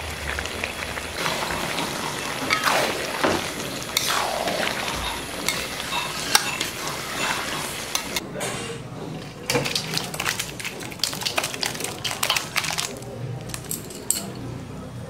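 Metal cooking utensils and pots clinking and scraping, in a string of short knocks that come thickest in the second half.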